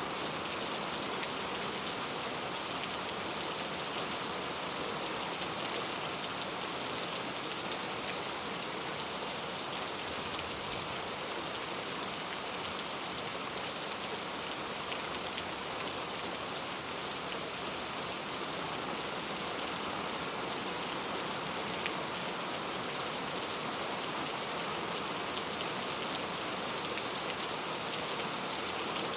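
Rain falling steadily on a road: a dense, even hiss with faint scattered ticks of single drops.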